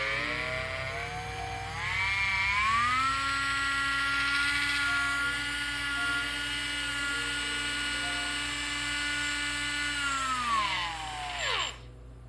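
Shimano 3000XH electric fishing reel's motor winding the spool, a whine that rises in pitch as it speeds up over the first few seconds, runs steadily, then falls as it slows and stops shortly before the end. The reel is freshly overhauled and greased, and it runs smoothly.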